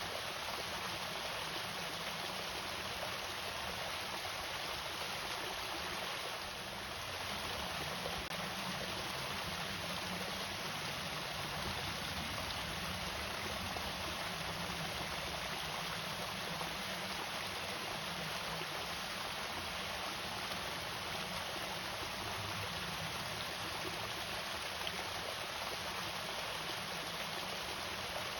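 Water pouring steadily over a small irrigation waterfall, an even rushing splash.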